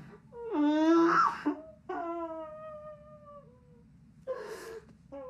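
A young man sobbing in anguish: a loud, breaking wail about half a second in, then a long falling wail, and a gasping breath near the end.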